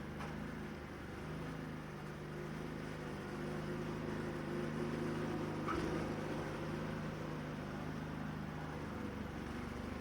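A motor running with a steady hum, a little louder about four to six seconds in, with a short click near the six-second mark.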